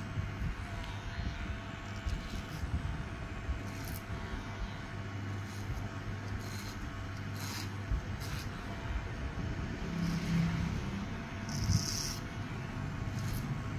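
Electric hair clipper buzzing as it cuts hair over a comb, with short scratchy strokes. The low hum changes about eight seconds in.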